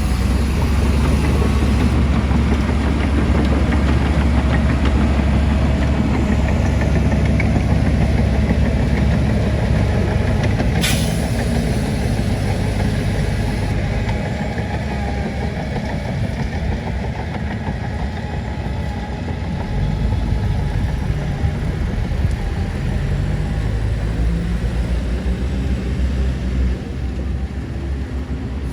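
Heavy construction machinery running steadily: a deep diesel engine rumble, with one sharp click about eleven seconds in.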